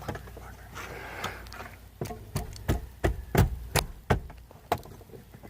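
A string of sharp clicks and knocks, about ten in a few seconds, from the steering column being released and lowered on its tilt adjustment.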